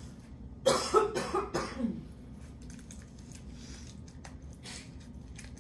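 A person coughing: a quick run of several coughs lasting about a second, starting just under a second in.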